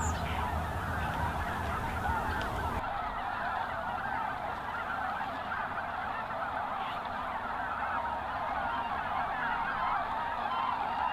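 A large flock of geese calling, many overlapping voices blending into a steady clamour.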